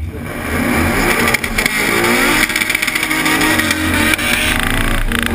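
2012 Ford Mustang GT's 5.0 Coyote V8 held at high revs during a burnout, the rear tyres spinning and squealing on the pavement. It starts suddenly, and the engine pitch climbs and wavers while the tyre noise holds steady.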